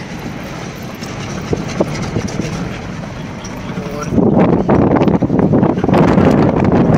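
Car on the move heard from inside the cabin: a steady rumble of engine and road. About four seconds in it turns abruptly louder and heavier.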